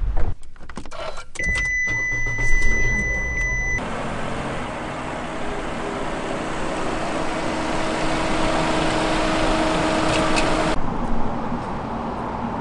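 Clicks from inside a parked car, then a steady high electronic beep lasting about two seconds. After that comes a steady rushing noise with a low hum, which stops suddenly near the end.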